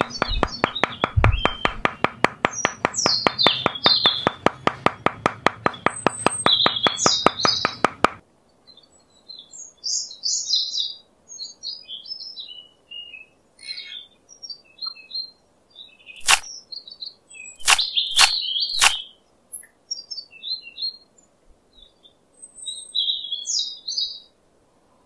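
Small birds chirping and tweeting throughout. For the first eight seconds a fast, even rattle of closely spaced ticks sounds under them and is the loudest thing, then stops abruptly; later there are four sharp clicks close together.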